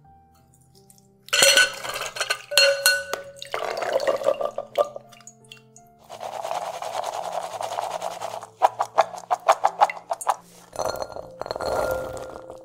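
Canned chickpeas and their liquid poured into a stainless steel colander, clinking and splashing on the metal; midway a steady rush, then the chickpeas rattle in the colander in quick clicks and tumble into a glass bowl near the end. Soft background music underneath.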